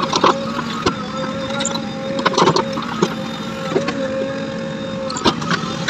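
A machine running steadily with a level whine, with several sharp knocks and clanks spread through it, the loudest about two and a half seconds in.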